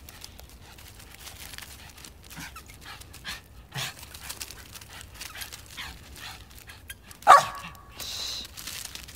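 A Japanese Spitz gives one sharp play bark about seven seconds in, the loudest sound here, with a few fainter short sounds before it.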